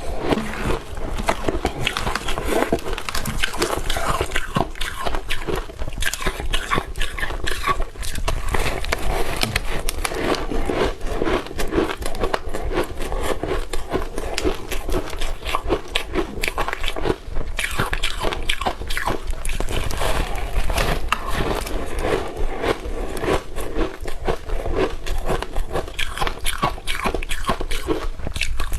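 Close-miked crunching and chewing of ice: dense, irregular crackling crunches as the ice is bitten and ground between the teeth.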